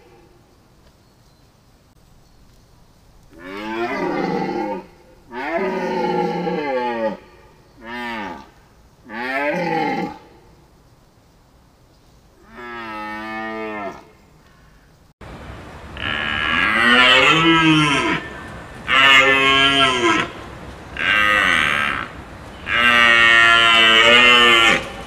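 Deer calling: a series of drawn-out calls, each a second or two long with the pitch bending up and down. Four calls come with pauses between them, then a lower, quieter one. About fifteen seconds in, a different recording with a steady background hiss begins, and four louder, higher calls follow close together.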